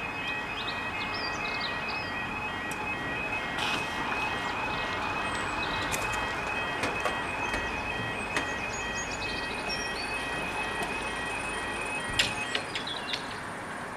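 Level crossing warning alarm sounding as a steady pulsing electronic tone over background noise, then cutting off abruptly with a click about twelve seconds in.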